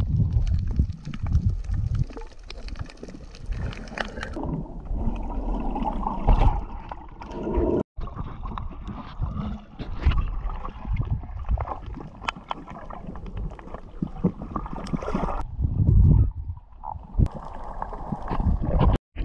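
Water sloshing and gurgling with wind rumbling on the microphone, broken twice by abrupt cuts.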